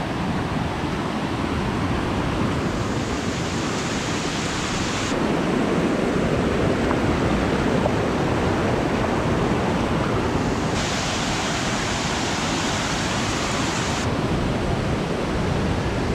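Steady rushing of running water from monsoon streams flowing over rocks, an even noise without pauses.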